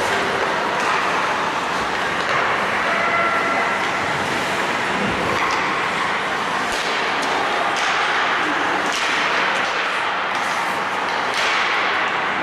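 Ice hockey game in an arena: a steady wash of rink noise with scattered sharp clacks of sticks and puck.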